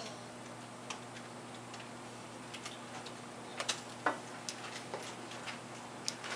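Scattered light clicks and taps at irregular intervals, a few sharper ones around the middle, over a faint steady hum.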